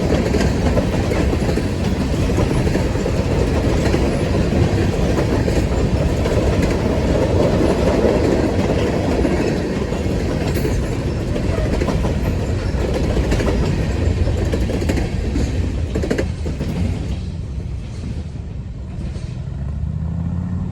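Freight train rolling past: a steady rumble of cars with wheels clicking over rail joints, easing off over the last few seconds.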